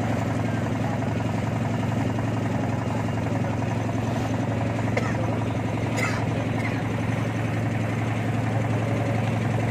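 A boat's engine running steadily, an even low drone, as the boat moves across the river.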